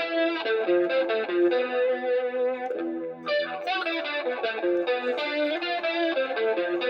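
Electric guitar played through a yellow compressor pedal and a BSM wah pedal: a run of picked single notes and double stops, a few notes a second, with a brief dip about three seconds in.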